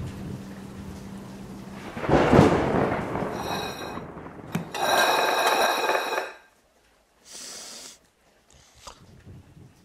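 Rain with a steady low engine hum, then a loud swelling rumble of thunder about two seconds in. Around five seconds a second loud burst carrying a ringing tone follows, then a short burst and a few faint clicks near the end.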